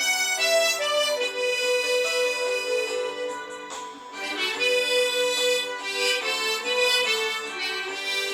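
Harmonica playing a slow melody of long held notes, with a short lull about four seconds in.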